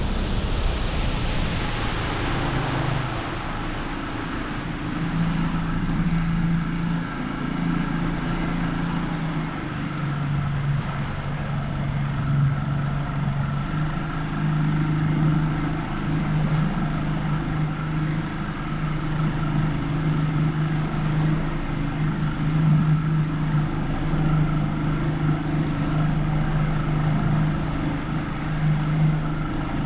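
A boat's motor running steadily, a constant drone that drops slightly in pitch about ten seconds in, over the rush of water and wind.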